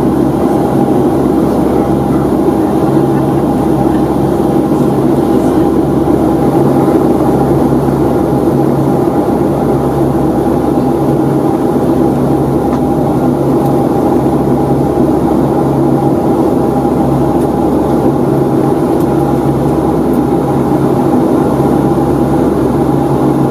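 Steady cabin drone inside a Boeing 757-200 in flight: rushing air and the running of its Rolls-Royce RB211 engines, with a few constant hums and no change in level.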